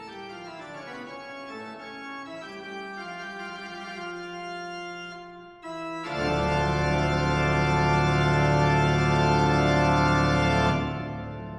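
Background organ music. It starts with softer held notes, some sliding in pitch, then about six seconds in a loud full chord comes in, holds for several seconds and fades away near the end.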